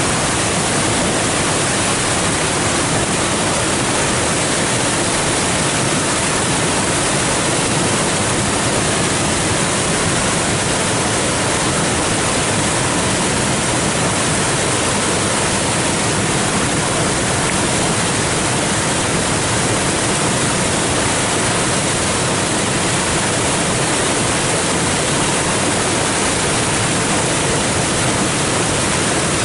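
Flood-swollen creek pouring over a rock ledge and churning into white-water rapids: a loud, steady rush of falling water.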